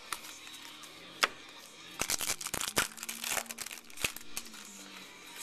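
Trading cards being handled: a dense run of crinkling and crackling from about two seconds in, with a few single sharp clicks before and after.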